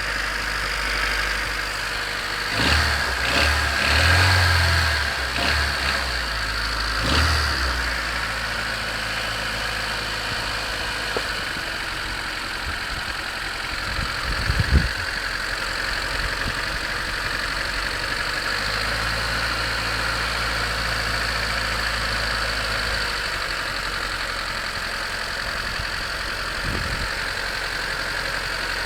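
1991 Honda CRX DX's high-mileage D15B2 four-cylinder idling on a cold start, running with a racket that the owner can't place as rod knock, piston slap or valve clatter. A few louder swells come in the first several seconds.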